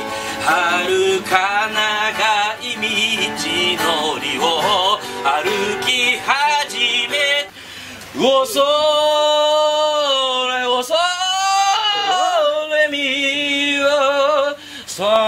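A man singing to strummed acoustic guitar; after a short drop about eight seconds in, the singing goes on in long held notes with a wavering vibrato.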